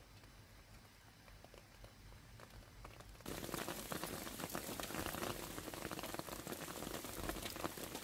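Light rain dripping into a puddle, faint and sparse. About three seconds in it switches abruptly to a dense, much louder patter of hailstones falling on leaves and paving.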